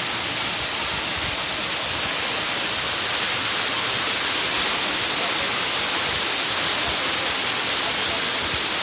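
Waterfall rushing: a steady, unbroken hiss of falling water, heaviest in the high range.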